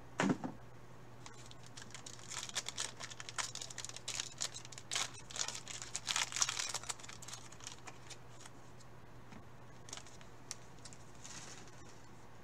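Baseball card pack wrapper being torn open and crinkled by gloved hands: a run of crackly crinkling and tearing for several seconds, then a few soft clicks and one short crinkle near the end.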